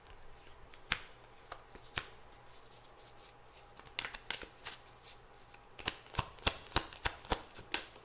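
Tarot cards being shuffled and handled: a series of sharp card snaps and taps, sparse at first, then coming in quick clusters around the middle and again toward the end.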